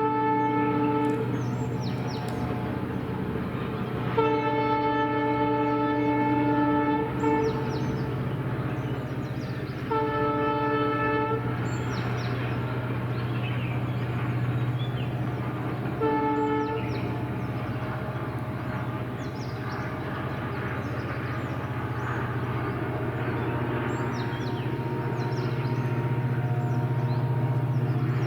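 EMD WDG4 (GT46MACe) diesel locomotive sounding its multi-chime air horn in four blasts: a short one at the start, a long one of about three seconds, a shorter one of about a second and a half, and a brief one. Under them the locomotive's diesel engine runs steadily as it pulls its train away.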